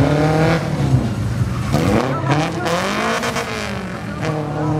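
Mitsubishi Colt pickup's engine revving hard through a slalom turn: its pitch holds at first, climbs about two seconds in, then arches over and falls back near the end, with some tyre skidding in the middle.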